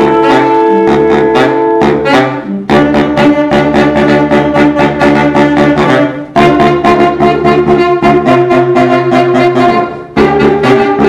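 Saxophone quartet, a baritone saxophone among them, playing a jazz piece together in loud, held chords and moving lines. The phrases break off briefly about two and a half, six and ten seconds in.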